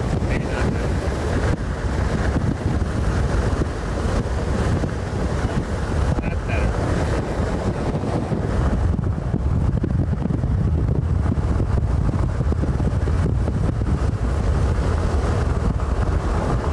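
Gusty wind buffeting the microphone: a loud, steady rumble that swells and eases without a break.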